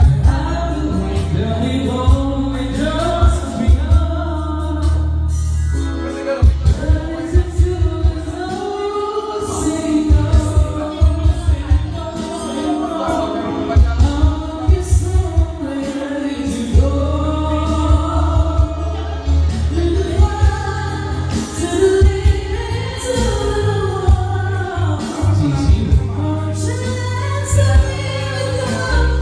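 A woman and men singing live into microphones over amplified backing music with a heavy bass line and a steady drum beat.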